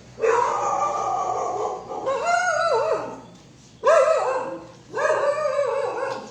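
A dog howling and whining in four long, wavering calls, each lasting about a second or more.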